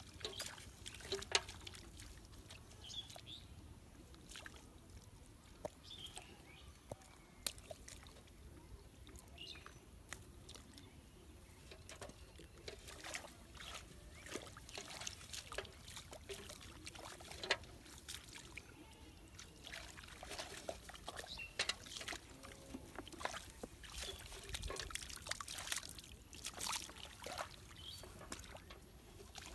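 Hands groping through the muddy water and grass of a shallow rice field drain for fish: faint, irregular small splashes, squelches and slaps of water, busier in the second half.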